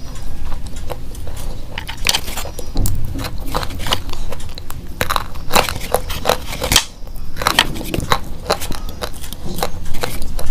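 Slate pencils being bitten and chewed: an irregular run of sharp crunches and crackles, with a brief pause about two-thirds of the way through.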